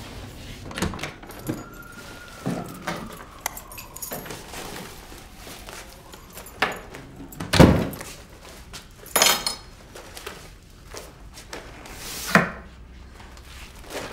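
A person coming home and handling things: a jangle of keys and a run of separate knocks and thuds, as of a door and objects set down on furniture, the loudest a deep thud just past halfway.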